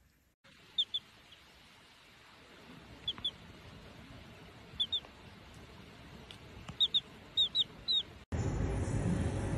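A baby chick peeping: short, high cheeps that slide downward, mostly in pairs, repeated every second or two over a faint hiss. Near the end the sound cuts to a louder, steady background noise.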